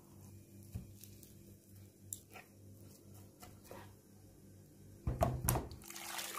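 Light clicks and scrapes of a metal fork and knife on a wooden cutting board as cooked chicken is pulled off the bone and chopped, with a quick run of loud knocks about five seconds in. A short rush of noise follows near the end.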